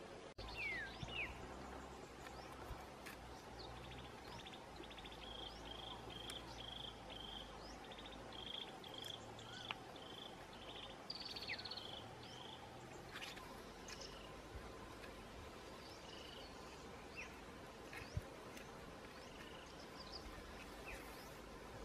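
Birds chirping and calling, with a quick run of repeated chirps through the middle, over a faint steady insect hum. A low rumble runs through the first half, and there is a single sharp click about eighteen seconds in.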